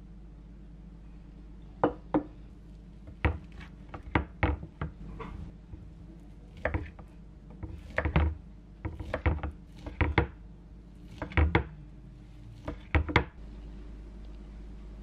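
Kitchen knife cutting through stacked fish cake sheets and knocking on a wooden cutting board: some twenty sharp knocks, often in quick pairs or threes, beginning about two seconds in and stopping shortly before the end.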